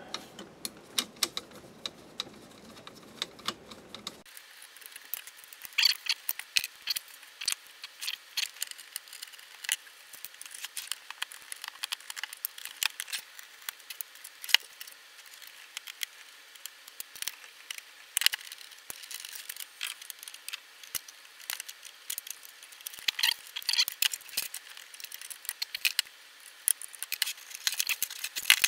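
Hands and a screwdriver working on an opened ATX power supply: a steady run of small clicks, taps and metallic clinks and rattles as parts are taken off and the steel case and brackets are handled.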